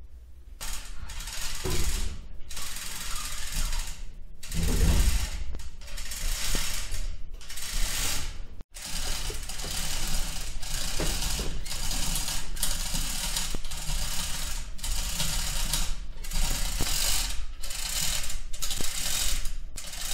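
Mechanical ratcheting in repeated strokes, each about half a second to a second long, with short pauses between them.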